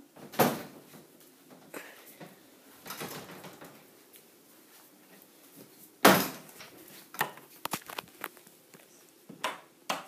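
A series of sudden knocks and bangs, the loudest about six seconds in, followed by a run of smaller clicks and knocks.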